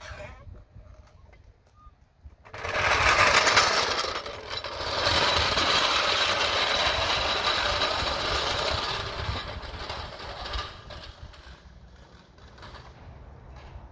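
Power tool running in two long runs with a fast, even rattle. It starts abruptly about two and a half seconds in and fades out by about eleven seconds.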